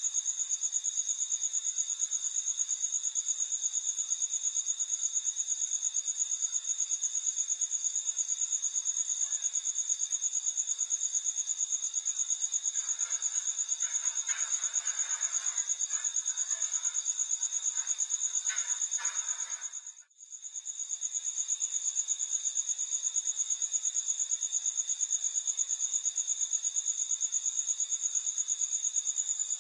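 Crickets trilling steadily in a continuous high-pitched, fast-pulsing chorus, which drops out briefly about twenty seconds in and then resumes.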